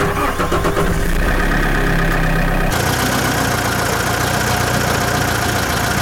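Tractor engine idling steadily, its tone shifting a little under three seconds in.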